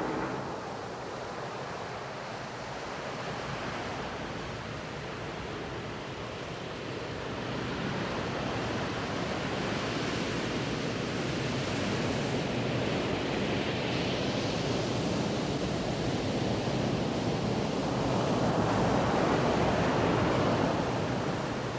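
Ocean waves washing ashore: a steady rush of surf that swells and ebbs slowly, building to its loudest surge near the end.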